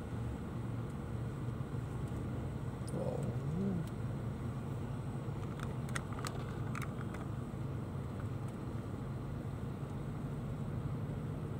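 Steady low engine and road hum heard from inside a car's cabin, with a brief low rising-and-falling tone about three and a half seconds in and a few sharp clicks around six to seven seconds in.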